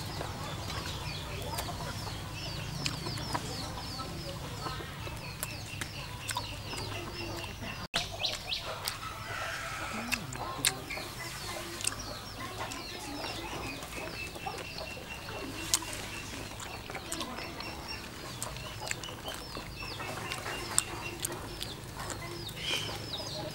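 Chickens clucking amid many short, high bird chirps and repeated trilled notes, with a few sharp clicks. The audio drops out briefly about eight seconds in.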